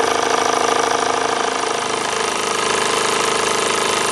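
Doll toy steam engine running fast and steady on live steam, its single cylinder driving the flywheel with a rapid, even mechanical clatter. It runs smoothly, though still priming a little, with some water coming out with the steam.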